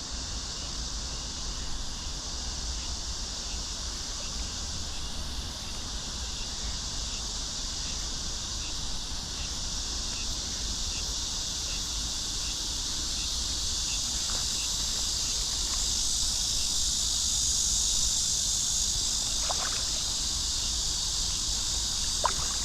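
A steady, high-pitched chorus of insects outdoors that grows louder partway through, over a low rumble of wind. There are faint rhythmic ticks, and a couple of short faint knocks near the end.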